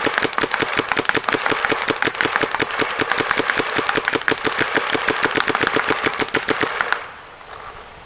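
Planet Eclipse Gmek mechanical paintball marker firing a rapid, even string of shots on compressed air, stopping about seven seconds in.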